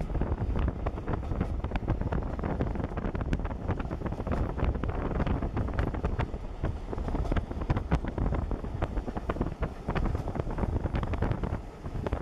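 Wind buffeting the microphone held out of the window of a moving steam-hauled train, over the steady running rumble of the coaches on the track, with frequent small clicks and rattles.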